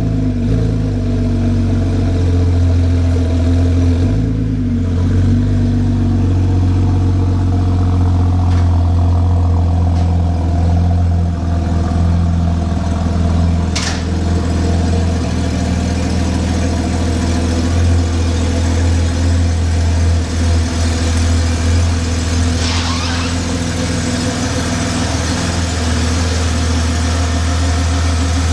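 BMW E90 330i's straight-six running through a muffler-delete dual exhaust, idling steadily with a deep drone. A single sharp click comes about halfway through.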